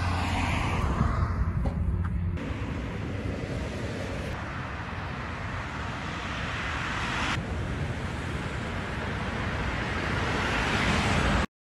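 Highway traffic passing at speed: a continuous rush of tyres and engines that swells as cars approach, then cuts off abruptly just before the end.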